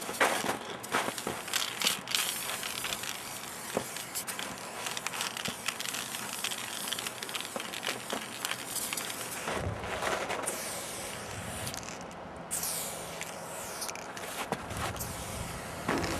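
Aerosol spray-paint can hissing in repeated long bursts as a graffiti piece is painted, with scattered clicks and rustling between the bursts.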